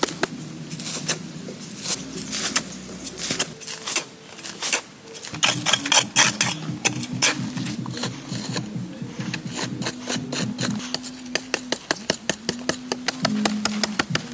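Background music: low held notes that change in steps over a fast, even clicking beat.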